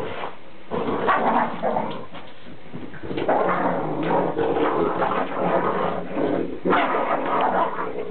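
Two Boston Terriers play-growling and snarling as they tug at a towel, in rough bouts broken by short pauses.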